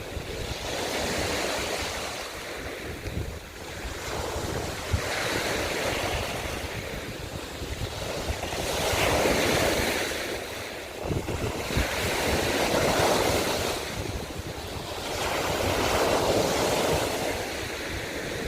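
Sea waves breaking and washing over a shore of broken scallop shells, the surf swelling and ebbing about every three to four seconds.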